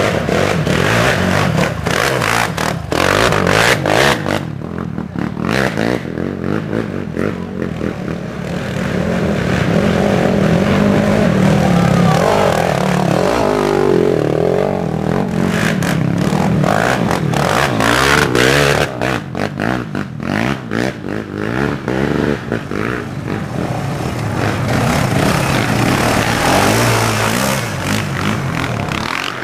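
Racing quad (ATV) engines revving up and down, the loud engine note breaking up into choppy stretches twice, with scraping and clatter.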